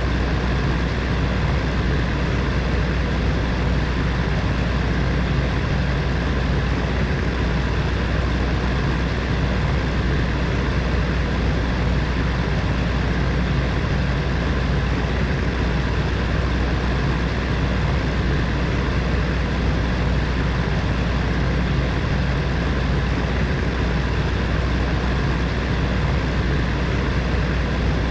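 Heater fan running steadily: an even rushing of air over a deep, constant hum, with no change in speed.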